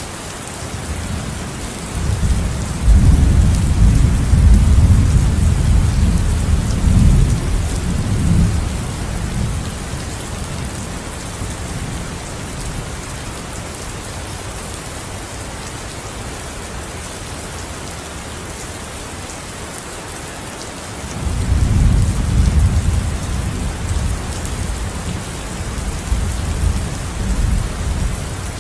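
Steady heavy rain with two long rolls of thunder, one a couple of seconds in lasting about seven seconds, and another starting about three-quarters of the way through.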